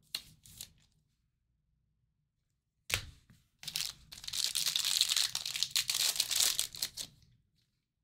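A trading-card pack's wrapper being torn open and crinkled by hand: a sharp rip about three seconds in, then a few seconds of continuous crackly tearing that fades out. A few soft clicks of cards being handled come just before.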